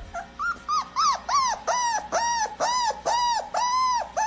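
A fast, regular run of short high-pitched whining cries, each rising and then falling in pitch, about two to three a second, steadying into an even rhythm after the first second. It is the sound played to get a dog's reaction.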